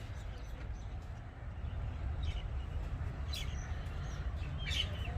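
Birds chirping a few times, in short high calls that come more often near the end, over a steady low rumble.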